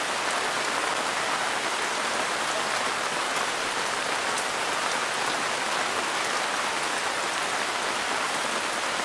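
A steady, even hiss of noise, like rain falling, that never pauses or changes.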